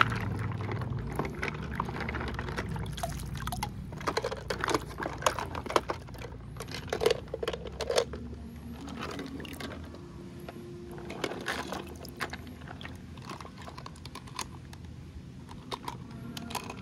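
Toys being washed in water: water sloshing and pouring, with irregular small clicks and knocks as the toys are handled and bump together.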